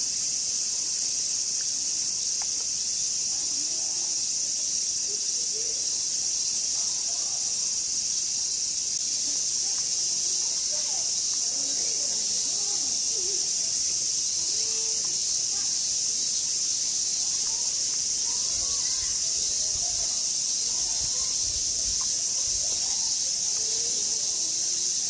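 Dense, steady high-pitched chorus of summer cicadas, an unbroken hiss that never lets up.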